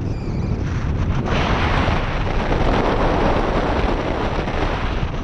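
Wind buffeting the microphone of a camera on a moving car: a loud, steady rush with no engine note standing out, growing stronger a little over a second in.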